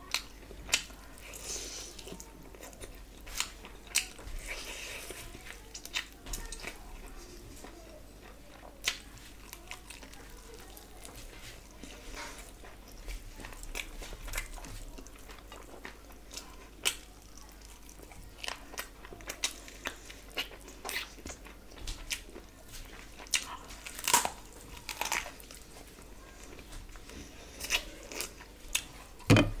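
A person eating rice and curry by hand: wet chewing with irregular sharp mouth clicks, smacks and crunches.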